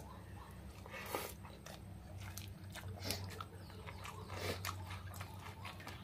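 Faint chewing and scattered small clicks of a meal eaten by hand from steel bowls, over a low steady hum.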